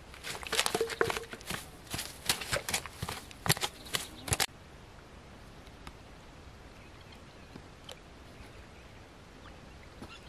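Crackling, rustling and sharp knocks as a nylon mesh fish net is handled among rocks and dry twigs. After about four and a half seconds they stop abruptly, leaving only quiet background with a few faint ticks.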